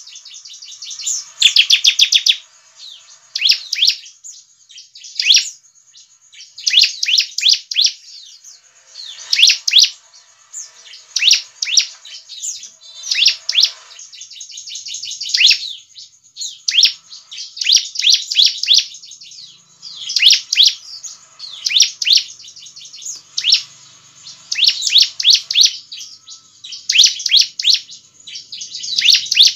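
Bar-winged prinia (ciblek) calling: repeated bursts of rapid, high-pitched chirping trills, about one every second or two.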